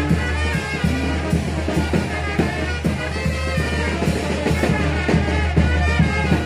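A live brass wind band (banda de música de viento) playing dance music, with horns and a tuba over a steady drum beat.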